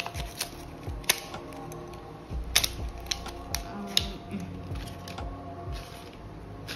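Packaging of a metallic paint marker being torn open and handled: irregular sharp clicks and rustles of paper and plastic, a few strokes a second at first, spaced out later, over soft background music.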